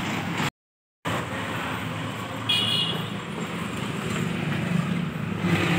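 Street traffic noise from passing vehicles, with a short horn toot about two and a half seconds in. The sound drops out completely for half a second near the start.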